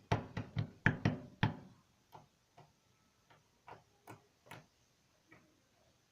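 Sticky slime being squeezed and stretched by hand, giving a run of sharp clicks and pops: several in quick succession in the first second and a half, then scattered single ones.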